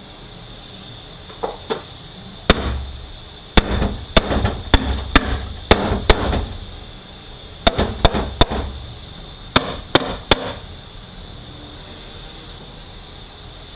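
Hammer striking metal on a Ford 4R75W automatic transmission during teardown: two light taps, then about a dozen sharp blows in quick clusters over several seconds.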